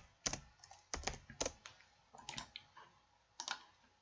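Typing on a computer keyboard: irregular key clicks, some in quick pairs, with short pauses between them.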